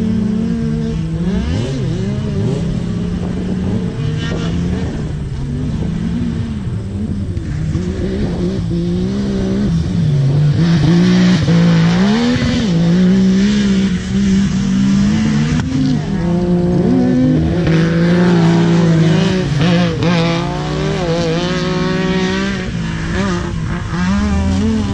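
Side-by-side UTV engine revving hard as it races along a dirt track, its pitch climbing and dropping again and again through throttle and shifts. It is loudest about halfway through as it passes close by.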